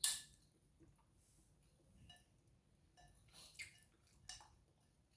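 Quiet eating sounds: a sharp click right at the start, then a few soft clicks and chewing noises.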